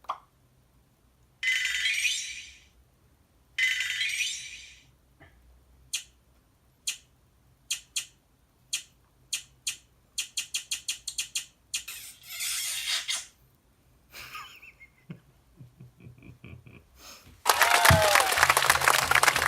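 A string of short sound effects played from a phone sound-effect app. Two noisy bursts come first, then single sharp clicks about a second apart that speed up into a quick rattle, then another noisy burst and a few faint tones. Near the end comes a loud, sustained noisy burst with a falling tone.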